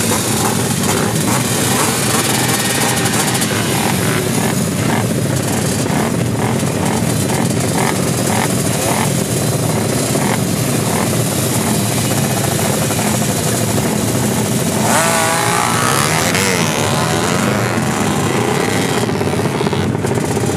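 Drag-racing motorcycle engines revving hard, with quick repeated throttle blips through the first half and a rising rev about three quarters through.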